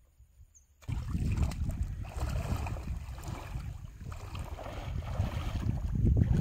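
Wind buffeting the microphone over water sloshing and lapping around a person wading waist-deep, cutting in suddenly about a second in after near silence.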